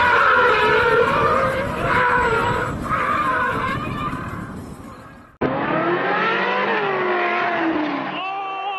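Car tyres squealing as it slides sideways, with its engine running under the screech; the sound fades away. About five seconds in there is an abrupt cut to another car spinning out, its tyres squealing and pitch gliding up and down.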